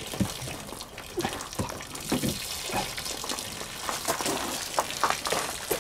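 Water running out of an RV's freshly opened low-point drain valves as the fresh-water lines empty: a steady rush of flowing water with irregular small spatters.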